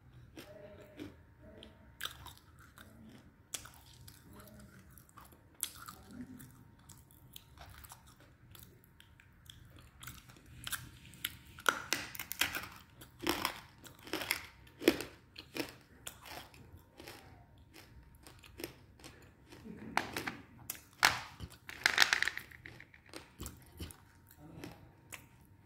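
Close-up chewing and crunching of dry edible clay chunks. Sharp crackling crunches come in bursts, loudest about halfway through and again near the end, with softer chewing between them.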